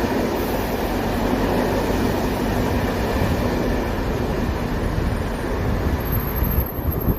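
Loud, steady rumble of a vehicle in motion, with a thin high whine appearing near the end.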